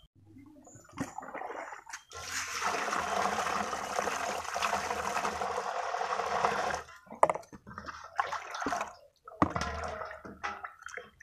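Water poured from a plastic dipper into a steel basin, a steady rush for about five seconds, stopping abruptly; then short splashes and sloshing as hands wash in the water.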